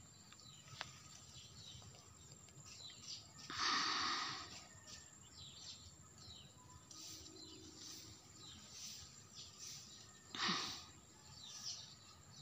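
Small birds chirping with short, quick high notes dotted all through, over faint outdoor background noise. Two louder brief rushes of noise, about four seconds in and near the ten-second mark, stand out above the birdsong.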